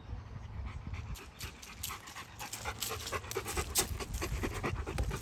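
Bernese Mountain Dog panting close to the microphone, a quick run of short breathy puffs that starts about a second in.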